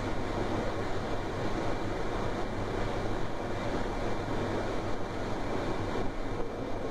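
Steady rushing background noise aboard a DB Class 425 electric multiple unit before its traction drive sound starts, with no distinct whine or clanks.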